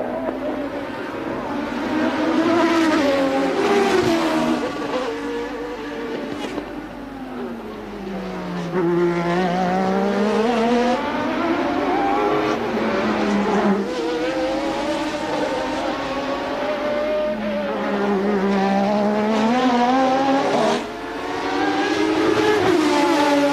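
1988 Formula One race cars' engines at high revs, several at once. The engine note drops sharply twice, about a third of the way in and again near the end, then climbs back up each time as the cars brake and accelerate.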